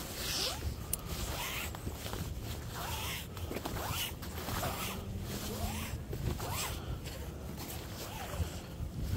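Magnet-fishing rope being hauled in hand over hand: a series of short rustling pulls, one about every half second to a second, over a low wind rumble on the microphone.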